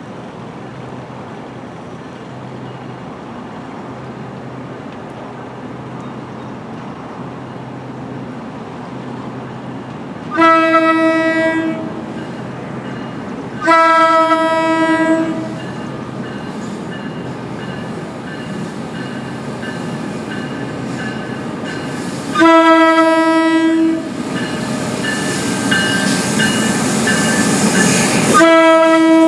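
Horn of an NJ Transit ALP-46 electric locomotive sounding four long blasts as the train approaches, the first two close together a little past a third of the way in, the next two later. The rumble of the approaching train grows louder over the last few seconds.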